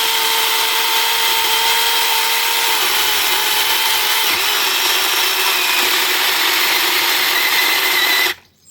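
Battery-powered mini chainsaw running and cutting into a thick log: a steady high motor whine with chain rattle. The pitch dips slightly a few seconds in, and it cuts off suddenly near the end.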